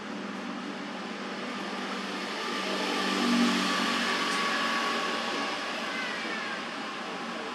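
A motor vehicle passing, its engine and road noise swelling to loudest a little past three seconds in and fading away, over a steady outdoor background hum.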